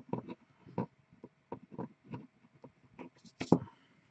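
Faint, irregular clicks and light taps from small objects being handled, over a faint steady hum.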